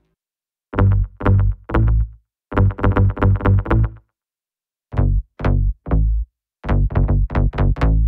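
Synth bass presets from reFX Nexus 4's Tropical House 4 expansion, played as short phrases of plucky, quickly decaying bass notes. Each phrase is three spaced notes followed by a quicker run, and it plays twice with short silent gaps between.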